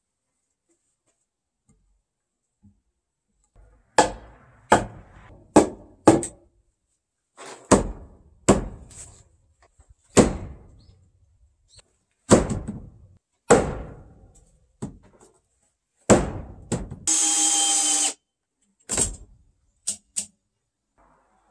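Heavy wooden mallet striking timber: about a dozen hard knocks in single blows and short runs as a hanok door-frame sill beam is driven into its posts. Near the end a steady rasp lasts about a second, followed by two more knocks.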